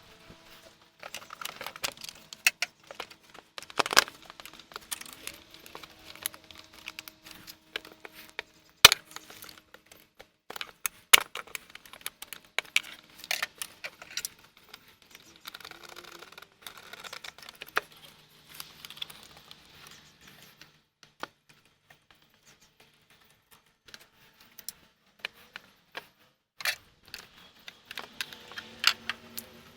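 Irregular metallic clicks, clinks and knocks of hand tools and car parts being handled during reassembly in an engine bay.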